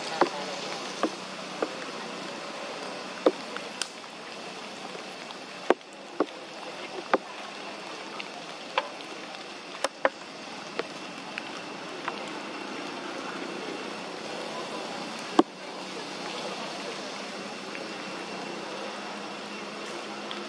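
Wet forest ambience: a steady hiss with scattered, irregular sharp clicks and taps.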